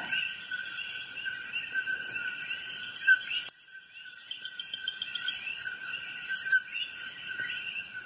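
Steady chorus of crickets chirping, with a few faint light clicks from the steel pick working inside the padlock. The chirping drops off abruptly about halfway through and comes back over the next second.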